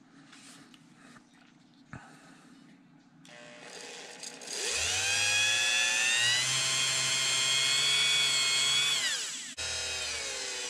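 A Dremel rotary tool starts about three seconds in and its whine rises as it spins up. It then runs steady for several seconds, turning a baitcast reel spool held in its adjustable chuck while the spool end is polished with leather and green rouge. It winds down near the end and briefly runs again at a lower speed.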